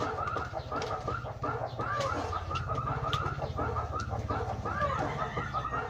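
Birds calling repeatedly in many short chirps, over the scattered light clicks of dried corn kernels being shelled by hand into a metal basin. A steady low hum runs underneath.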